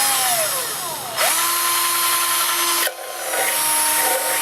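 Electric drill with a small bit drilling into a steel food can. The motor whines in three runs: the first slows, its pitch falling, about a second in, and the next two run steady.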